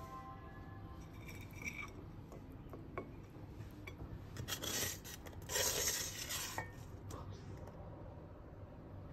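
A plastic spatula scraping and stirring a bitter gourd leaf, potato and shrimp stir-fry around a frying pan, with light clicks against the pan. Two louder scrapes come about four and a half seconds and six seconds in.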